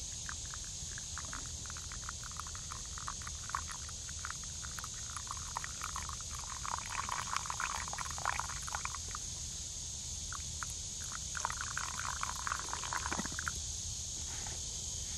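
Hot water poured in a thin stream from a camp kettle onto coffee grounds in a cloth handkerchief filter, trickling and pattering irregularly, heaviest in the middle of the pour, and stopping near the end as the pour ends.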